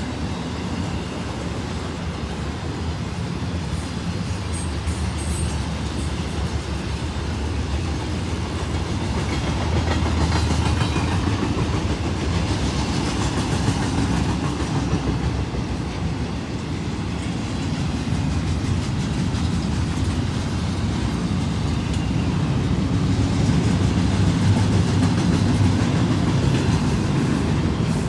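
BNSF double-stack intermodal freight train rolling past, the steel wheels of its container cars running on the rails. The sound is loud and steady, swelling twice along the way.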